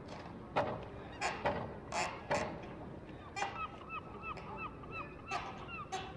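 Waterbirds calling: several loud, harsh calls in the first half, then a quick run of short repeated calls, about four a second, through the second half.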